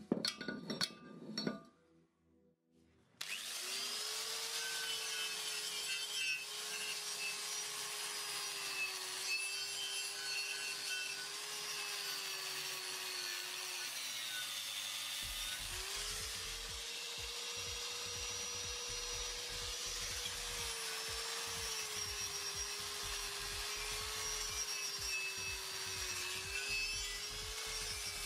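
Angle grinder with an abrasive cleaning disc grinding rust off a VW Polo 86c strut's steel steering knuckle: a steady motor whine with a scraping rasp. It starts a few seconds in, after a couple of metal clinks. Midway the pitch sags briefly and then picks up again.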